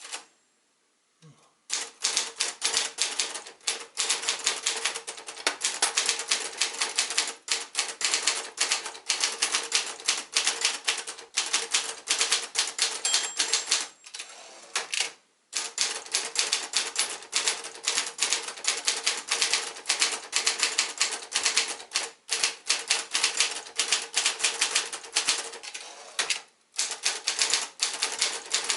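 1977 Sears Achiever 1 (Brother JP-7) manual portable typewriter being typed on: fast runs of keystrokes clacking. The typing stops briefly near the start, about halfway through and once more near the end.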